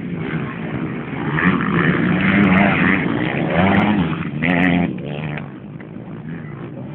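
Motocross dirt bike engines revving as the bikes race by. The sound grows louder about a second and a half in, with the pitch rising and falling, then fades away after about five seconds.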